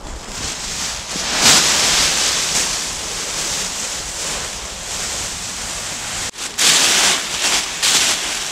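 Mylar space blankets crinkling loudly as they are gathered up and bundled, with a short break about six seconds in and then louder crinkling as one is pushed into a rucksack.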